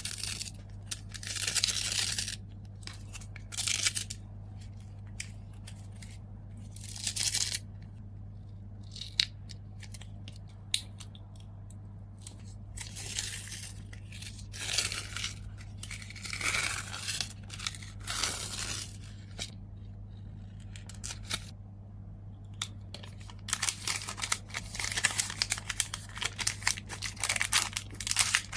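Packing an order by hand: repeated short bursts of tearing and crinkling of paper and plastic packaging, with a few sharp clicks between them.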